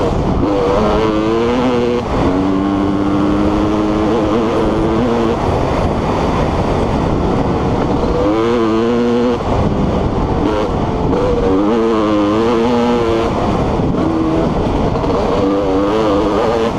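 TM Racing EN300 two-stroke enduro motorcycle engine under way, its pitch climbing and dropping again and again as the throttle is opened and closed, held steady for a couple of seconds early in the ride.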